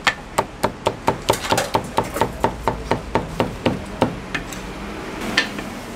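Chinese cleaver chopping rapidly through glazed barbecued pork onto a thick wooden chopping block, about four to five sharp chops a second. The chops stop after about four seconds, with two single chops near the end.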